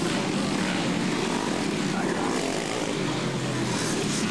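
Engines of several three-wheeler ATCs racing on a motocross track, a steady mingled engine noise with no single machine standing out.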